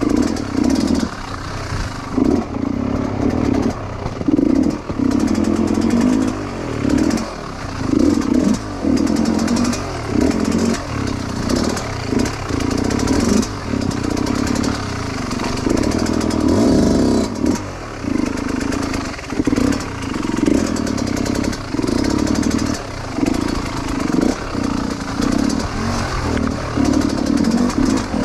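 Dirt bike engine revving in short bursts, the throttle opened and closed again roughly every second, as the bike works its way over a rocky trail.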